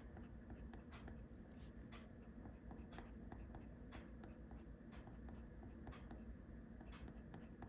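Coloured pencil scratching faintly on paper in a run of quick, short shading strokes, several a second.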